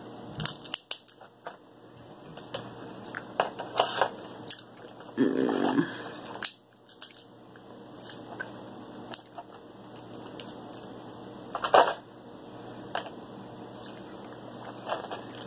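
Cooked king crab leg shells cracked and pulled apart by hand: a scattering of sharp cracks and snaps, the loudest about twelve seconds in. Chewing near the end.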